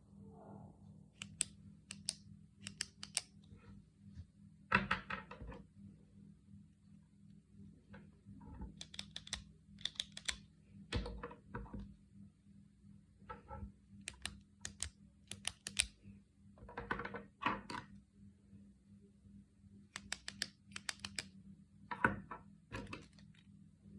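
Retractable pen being clicked again and again, sharp clicks in irregular bunches, a few louder than the rest, over a faint low hum.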